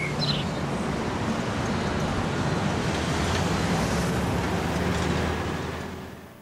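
Street ambience of road traffic: a steady wash of noise with a low rumble, fading out near the end. A bird chirps once at the very start.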